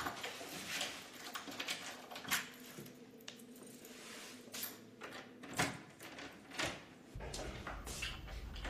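Scattered clicks and knocks, a door or objects being handled in a small room, with a few sharper knocks among them. A low steady rumble comes in near the end.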